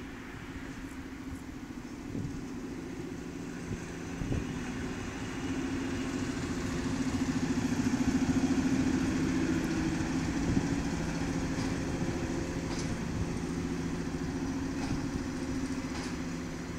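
Diesel locomotive engine running as it passes at the head of a railway work train, growing louder to its loudest about halfway through and then easing as the wagons roll by. A few sharp clicks sound now and then.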